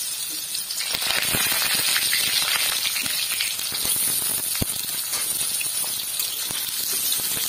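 Pointed gourd (potol) pieces frying in hot mustard oil in a metal kadai: a steady sizzle that grows louder about a second in as more pieces go into the oil. Scattered clicks and taps come from the pieces and the metal spatula against the pan.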